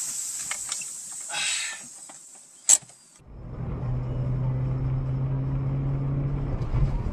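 A car's engine and road noise: a steady hum with a low drone, starting abruptly about three seconds in. Before it comes a quieter, fading stretch with one sharp click.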